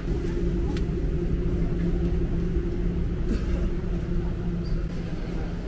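Steady low mechanical rumble with a droning hum that fades near the end, and a few faint clicks.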